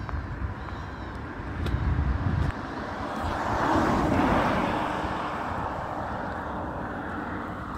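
A vehicle passing by, its noise swelling to a peak about four seconds in and then slowly fading.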